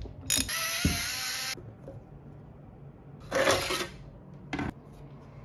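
Tools at work taking the footpad off a OneWheel Pint: a short buzz lasting about a second near the start, then a scraping rattle about three and a half seconds in and a single sharp click.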